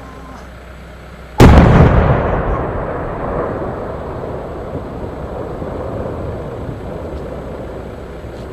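A single loud firework explosion about a second and a half in, followed by a long rumble that slowly fades over several seconds.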